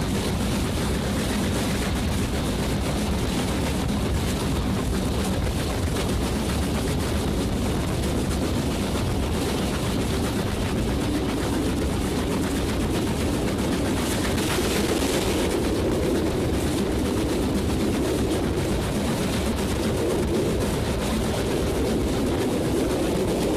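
Steam locomotive running at speed, heard from a carriage window just behind it: a steady rush of rapid exhaust chuffs mixed with wheel-on-rail rumble and wind on the microphone, with a brief louder hiss about two thirds of the way through.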